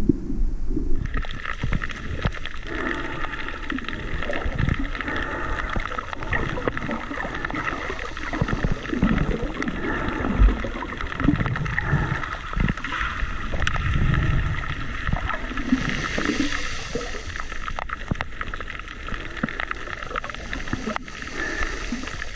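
Underwater sound picked up by a camera while snorkeling over a reef: muffled, uneven water movement, with a steady hum that sets in about a second in and holds.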